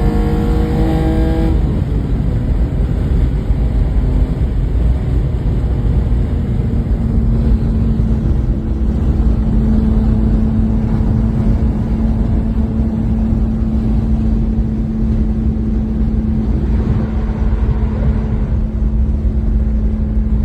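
BMW E36 inline-six with a Supersprint exhaust running. The revs are held up and climbing slightly, then drop back about a second and a half in, and the engine settles into a steady idle.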